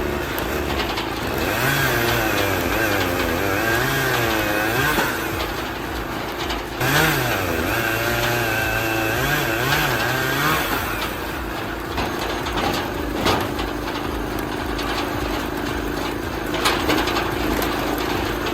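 Log splitter's engine running, its pitch rising and falling repeatedly for about ten seconds as its speed changes, then holding a steady note.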